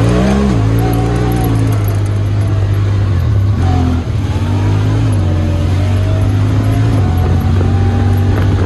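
Side-by-side UTV engine running under load. Its pitch rises and falls as the throttle opens and eases off.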